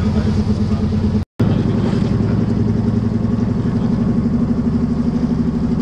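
Boat's inboard engine running steadily, heard from on board, with an even pulsing beat. The sound drops out for a split second about a second in.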